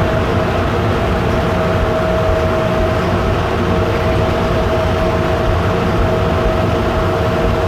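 Denver airport automated people-mover train running between stations, heard from inside the car: a steady rumble with a constant mid-pitched whine over it.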